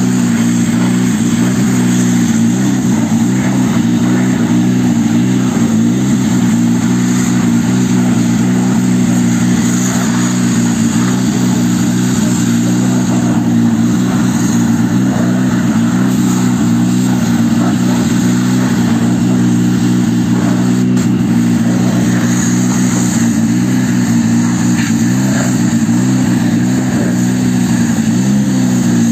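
Pressure washers spraying water onto a car's bodywork and wheels: a steady hiss of spray over a constant engine drone.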